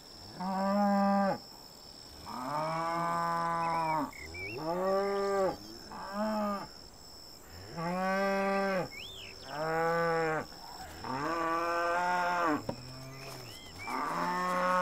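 Cattle mooing over and over, about nine calls in a row, each lasting half a second to two seconds, with short gaps between them.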